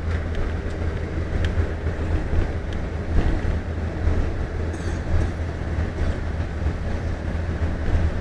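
Steady low rumble of a moving road vehicle, engine and tyre noise heard from on board.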